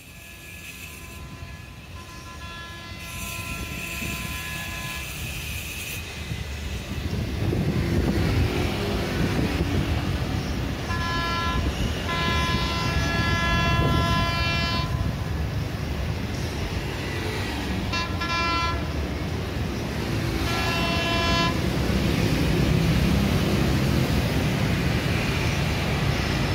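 Street traffic running steadily, with the Batara Kresna railbus's horn sounding over it: faintly at first, then a long blast of about four seconds midway and two short blasts after.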